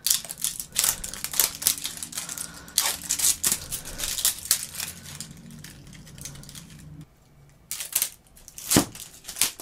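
Crinkly plastic packaging being torn open and crumpled by hand, in a dense run of crackles that pauses about seven seconds in and then resumes with a few more.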